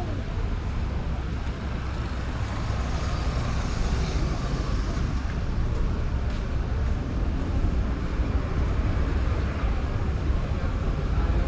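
Street ambience: a steady rumble of road traffic, with faint voices of passers-by.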